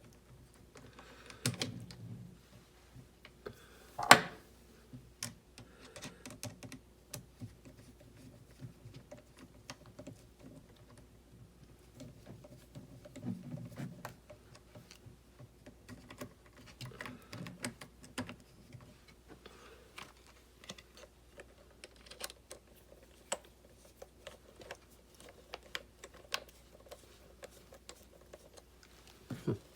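Small plastic and metal kit parts clicking, tapping and rattling on a work surface as they are handled and fitted together by hand, with a sharp click about four seconds in and a knock near the end.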